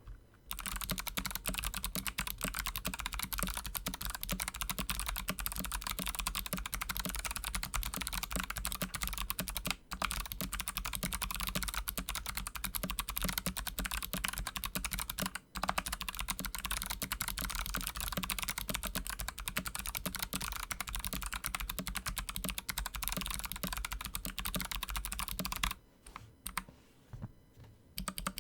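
Fast, continuous typing on a Kemove Snowfox mechanical keyboard with clicky Kailh Box Pink switches and stock keycaps, broken by two short pauses. Near the end the typing stops, and a few separate, scattered keystrokes follow.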